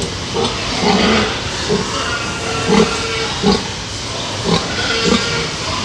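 Pigs grunting: a string of short, low grunts, about one a second, over a steady hiss.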